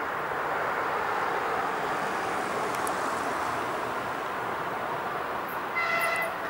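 ChS7 DC electric locomotive hauling a passenger train as it approaches, with a steady rolling noise of wheels on rails. Near the end the locomotive gives one short, high horn toot.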